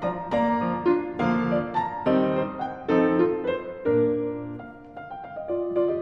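Background piano music: a slow melody of single struck notes over chords.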